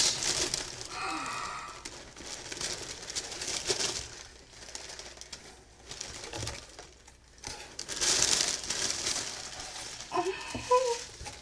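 Tissue paper crinkling and rustling in several bursts as a stuffed plush is unwrapped and lifted out of a cardboard box. There is a brief pitched vocal sound about a second in and another near the end.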